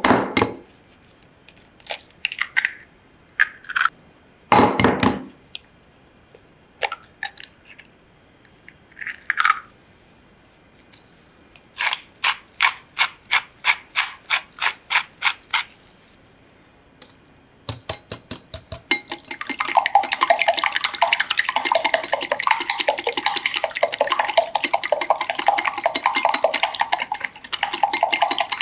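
Eggs knocked and cracked on the rim of a glass bowl and dropped in, then a pepper grinder turned over the bowl in a run of about a dozen even clicks, about three a second. From about two thirds of the way in, a wire whisk beats the eggs in the glass bowl with fast, continuous clicking and scraping.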